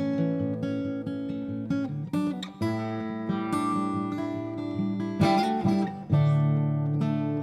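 Solo acoustic guitar playing an instrumental piece, plucked notes and chords ringing over one another.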